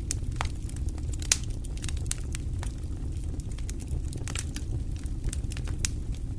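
Wood fire burning in a fireplace: a steady low rumble of the flames with irregular crackles and pops, one sharper pop about a second in.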